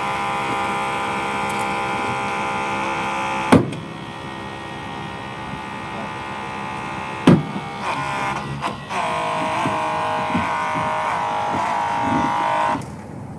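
Holmatro hydraulic rescue cutter's pump whining under load while it cuts a car door's box hinge, with a sharp crack about three and a half seconds in as the steel gives way. A second crack and a few clicks follow, then the whine picks up again and stops shortly before the end.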